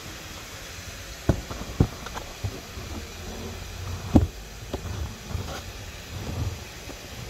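A handful of sharp knocks and taps over a low rumble, kitchen handling sounds around a pot on the hob. Two come close together early on and the loudest falls about four seconds in.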